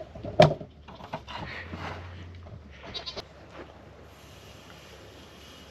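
Goats bleating in the background. A sharp knock comes about half a second in, and there is scraping as soybean meal is scooped and then poured into a plastic pitcher on a scale.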